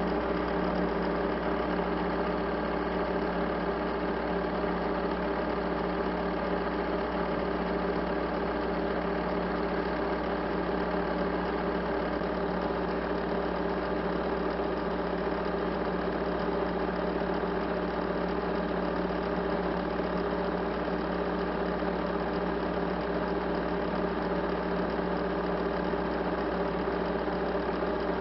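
A steady mechanical drone with several fixed tones over a low hum, even and unchanging throughout.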